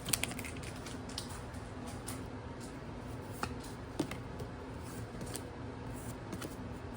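Quiet handling of trading cards and pack wrappers: a few soft, isolated clicks and light rustles over a steady low room hum.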